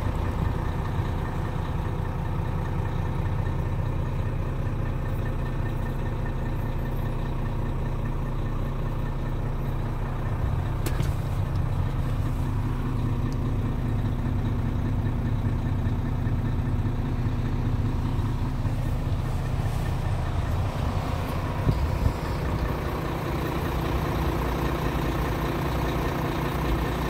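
Renault Lander 460 hook lift truck's six-cylinder diesel engine idling steadily, heard from inside the cab, with a single sharp click about eleven seconds in.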